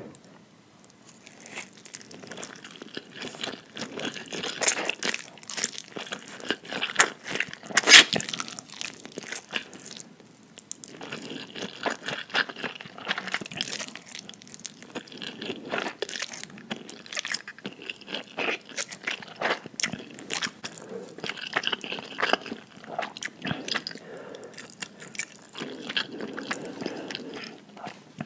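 Close-miked eating of spicy instant noodles: slurping and chewing with many short wet smacks and clicks, and one sharp loud click about eight seconds in.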